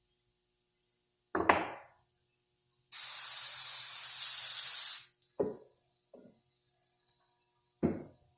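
A short clatter, then a steady hiss of spray that lasts about two seconds and cuts off abruptly, followed by a few knocks of parts being handled.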